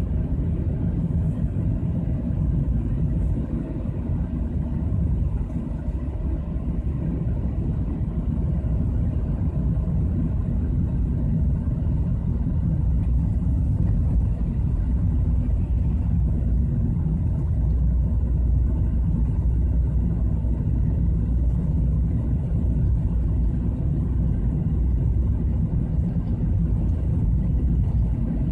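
A car driving steadily through a rough rock tunnel: a continuous low rumble of engine and tyres on the road surface, with no change in speed.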